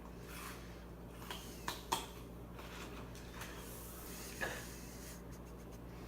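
A person chewing raw rhubarb stalk, with a few faint crisp crunches about two seconds in and again near four and a half seconds.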